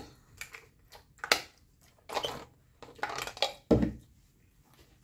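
Light plastic clicks, knocks and rattles from a child's plastic straw water bottle being handled and taken apart, with a heavier thump about three-quarters of the way in.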